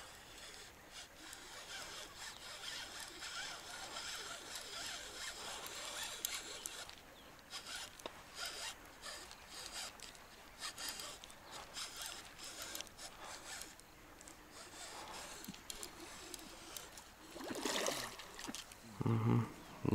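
Fishing reel being cranked, a steady rasping whir with small clicks as line is wound in with a small carp on the hook. A louder splash comes near the end as the fish reaches the surface.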